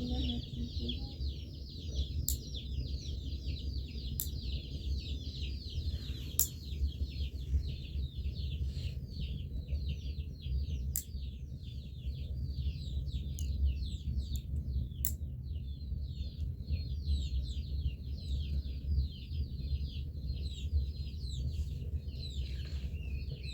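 Many small birds chirping continuously in quick, high, falling notes, over a steady low rumble, with a few sharp clicks now and then.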